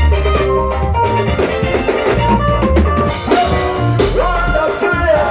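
Live gospel band playing an upbeat song: drum kit, electric guitars and hand drums keeping a steady beat, with a man singing into a microphone over it.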